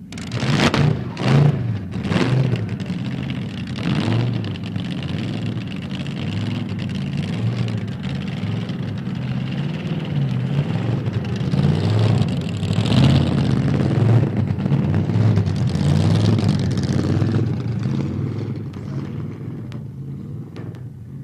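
A car engine revved in several sharp blips over the first few seconds, then running loud with its pitch rising and falling, fading over the last few seconds.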